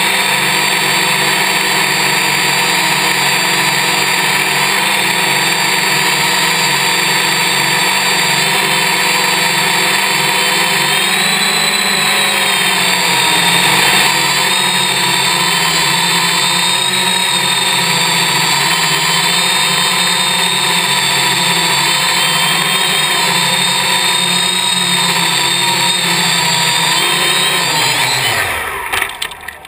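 Electric motors and propellers of a Y6 multicopter (six motors in three coaxial pairs) whining steadily in flight, the pitch shifting a little around the middle. Near the end the motors spin down with a falling whine and stop.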